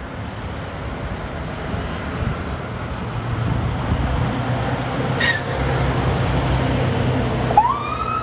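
Fire engine's diesel engine running under way, its drone growing louder as it approaches and passes, with a short sharp high blip partway through. Near the end its siren starts, winding up in a steady rising pitch.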